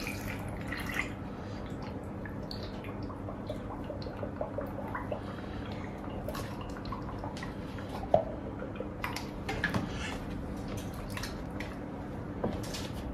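Milk pouring from a carton into a glass blender jug full of fruit, followed by light clicks and knocks as the carton is put down and the blender lid handled, one sharp click about eight seconds in.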